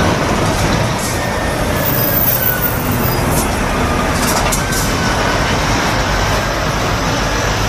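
Steady vehicle rumble with a hiss over it, running evenly throughout and cutting off abruptly at the end.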